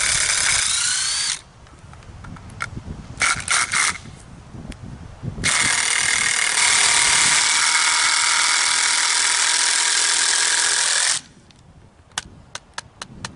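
Cordless drill/driver running in bursts, working screws in a board on a block of apple wood: a short run whose whine rises in pitch, a few brief blips, then one long steady run of about six seconds. A string of sharp clicks near the end.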